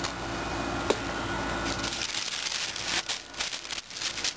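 Tissue paper rustling and crinkling as it is pulled back from a new pair of sneakers in their box, with one sharp click about a second in and denser crackling near the end.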